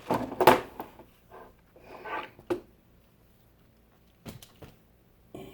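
Knocks and clunks of a desktop computer case being handled, the loudest about half a second in, then a sharp click and a few small clicks with quiet gaps between.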